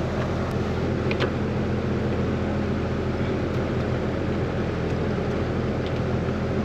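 Outdoor air-conditioner condensing unit running with a steady low hum. The compressor is not starting.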